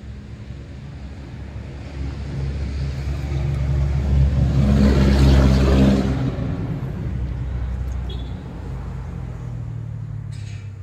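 A motor vehicle with a low, steady engine hum passes by, growing louder to a peak about halfway through and then fading away. A short click comes near the end.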